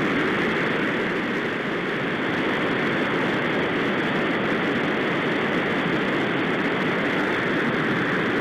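Steady roar of river water pouring over a low dam and churning into whitewater below it.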